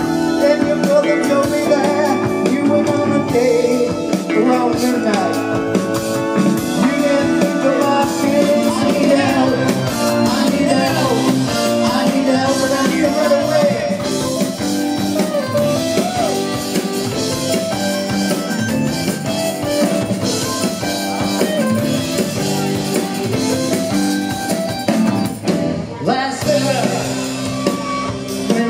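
Live rock band playing a song, with electric guitar, keyboards and drums, and a voice singing over it.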